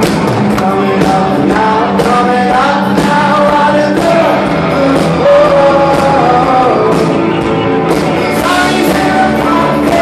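A live rock band playing electric guitars and drums, with a singer's voice carrying the melody, heard from the audience in a concert hall.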